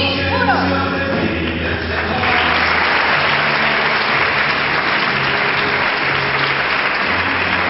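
Crowd applauding over choral music; the clapping swells in about two seconds in and dies away near the end while the music carries on.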